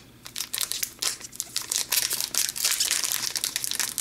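Wrapper of a 2014-15 Upper Deck Series 1 hockey card pack crinkling in the hands as it is opened. Rapid crackles start about a third of a second in and grow louder.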